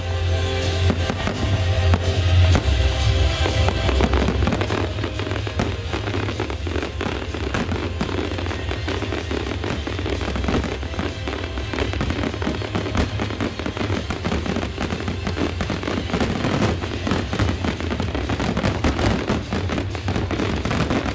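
Aerial firework shells bursting in rapid, continuous succession with crackling, over the display's accompanying music. The music's held notes and bass stand out in the first few seconds, then the dense bangs and crackle dominate.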